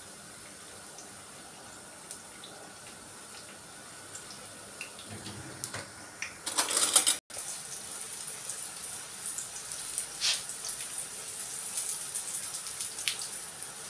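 Eggplant strips frying in oil in a pan: a steady sizzle that flares up loudly for about half a second just past the middle, breaks off abruptly, then comes back louder with many small crackles.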